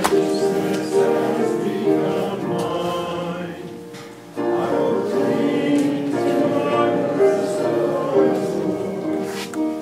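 Congregation singing a hymn together with instrumental accompaniment, in sustained held notes, with a short break between phrases about four seconds in.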